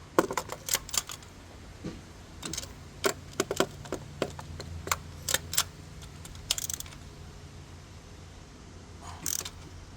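Hand ratchet clicking in short irregular runs as a new spark plug is snugged down, with light metallic clinks of the tool.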